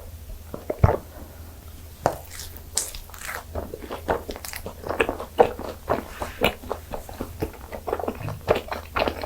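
Close-miked biting and chewing of butter-fried gijeong-tteok, Korean fermented rice cakes, heard as many short, irregular mouth clicks and smacks.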